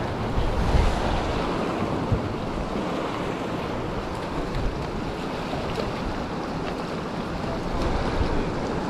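Wind buffeting the microphone over the steady rush of fast-running inlet water churning around the pier pilings.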